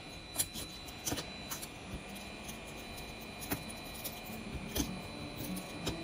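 Small repair tools clicking and scraping on an iPhone 12 Pro Max's back during back glass removal: about half a dozen sharp, irregular clicks over a faint steady high tone.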